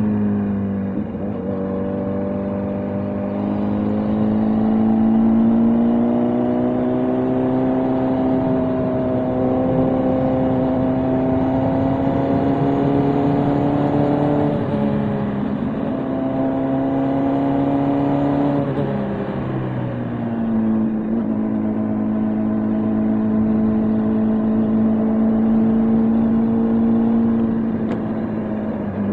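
Motorcycle engine running under way, its pitch climbing slowly. The pitch dips sharply about halfway through and drops again a few seconds later and near the end.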